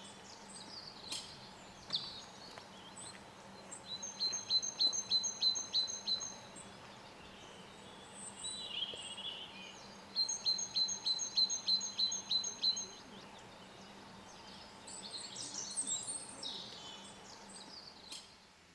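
Lesser spotted woodpecker calling: two runs of about ten evenly spaced, high piping notes, a few seconds apart. Other woodland birds chirp briefly between and around them.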